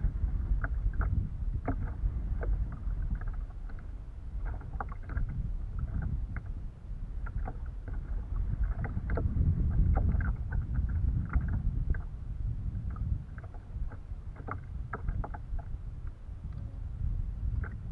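Choppy water lapping and splashing against the hull of a Mako 12 Angler pedal kayak: many small, irregular splashes over a low, unsteady rumble of wind on the microphone.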